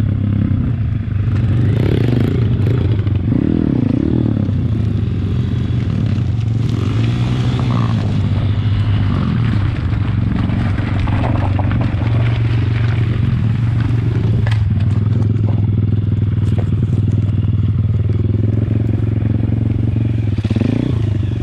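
MRF 140 RC Big pitbike's single-cylinder four-stroke engine running while the bike is ridden off-road. The revs swell and drop several times, most clearly early on and near the end, and short knocks and rattles come from the bike over rough ground.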